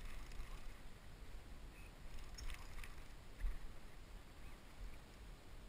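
Wind on the microphone and water lapping against a small boat's hull, with a few faint clicks about halfway through.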